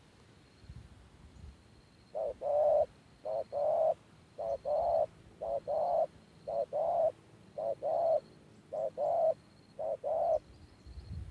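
Spotted dove cooing: a run of about eight two-part coos, a short note then a longer one, roughly one a second, starting about two seconds in.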